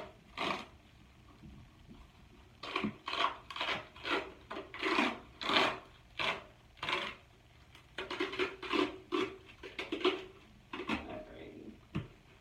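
A roller bandage being wound around a leg: a series of irregular rubbing, swishing strokes of fabric on fabric and skin, in bunches with short pauses between.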